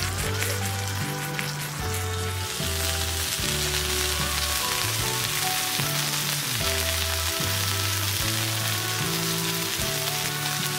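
Beef chunks sizzling as they sear in a hot pan, the sizzle growing thicker about two and a half seconds in, under background music with a stepping bass line.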